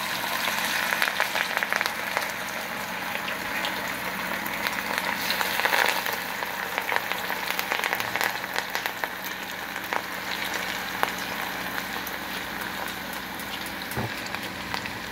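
Cornflour-coated chicken pieces deep-frying in hot oil in a small wok: a steady, dense crackle and sizzle of bubbling oil, a little louder in the first half. A light knock near the end.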